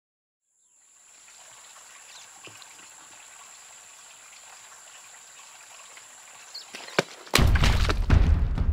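Faint forest ambience: a soft hiss with a thin high whine and scattered drips. About seven seconds in there is a sharp knock, then a sudden loud rush of water splashing over leaf litter.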